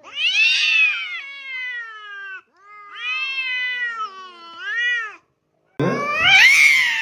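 A cat meowing in long, drawn-out calls that rise and fall in pitch: two long meows, then a louder one near the end.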